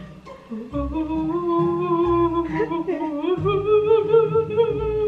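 Spooky background music: a wavering, theremin-like tone that starts about a second in and glides slowly upward, over a regularly pulsing low beat.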